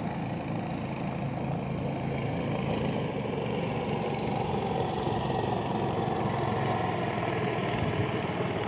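A small engine running steadily, its pitch drifting slightly.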